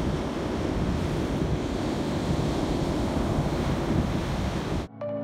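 Ocean surf washing onto a beach, with wind buffeting the microphone. The sound cuts off suddenly near the end and music begins.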